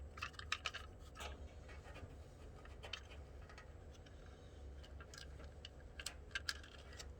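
Faint, irregular clicks and scrapes of wires being handled and fed into an electrical switch box, over a low steady hum.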